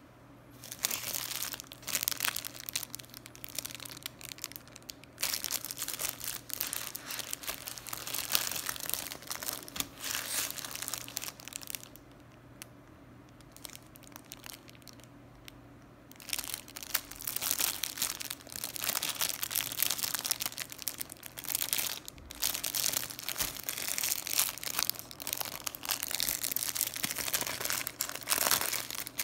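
Clear plastic bread wrapper crinkling and rustling in irregular bursts as it is handled and turned over in the hands, with a quieter pause of a few seconds around the middle.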